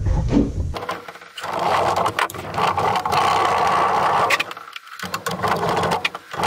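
Fast back-and-forth scrubbing of crocus cloth against corroded aluminium inside a plastic mosquito-trap housing, a dense scratchy rasp with small clicks. It pauses briefly about three-quarters of the way through, then starts again.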